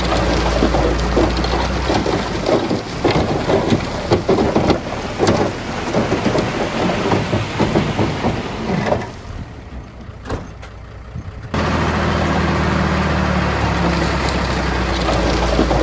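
Diesel engine of heavy earthmoving machinery running steadily, then several seconds of irregular clattering and rumbling of rock and soil being moved. This dies down about nine seconds in, and the steady engine sound returns suddenly near twelve seconds.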